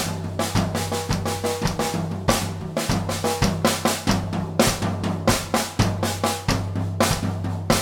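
Drum kit being played: a fast, steady run of bass drum, snare, hi-hat and cymbal hits over a steady low bass tone.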